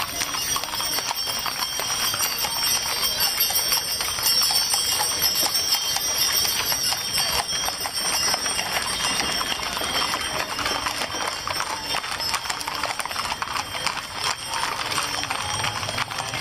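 Horses' hooves clip-clopping as a parade of riders goes by, a dense, irregular clatter of many hoofbeats, with voices in the background.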